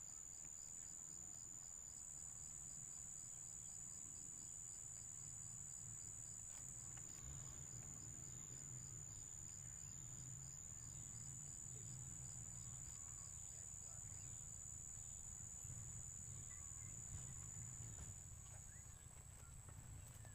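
Insects calling: a steady high-pitched buzz that stops shortly before the end, with a second, rapid even chirping of about four pulses a second that fades out about three quarters of the way through. A faint low rumble lies underneath.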